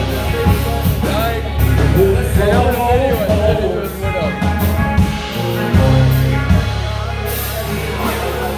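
Live rock band playing with bass, drums and a melodic line over them, in an instrumental stretch of the song.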